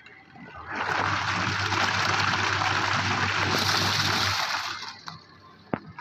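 Water sloshing and churning in the tub of an LG top-load washing machine as the pulsator agitates, driven by its newly replaced wash motor with a low hum. The churning starts about half a second in, runs about four seconds and stops in a pause of the wash stroke, with a single click near the end.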